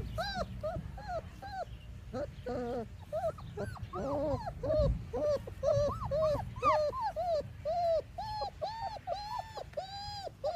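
Three-week-old German Shepherd puppies whimpering: a steady run of short, arched whines, two or three a second, with more than one pup crying at once about halfway through.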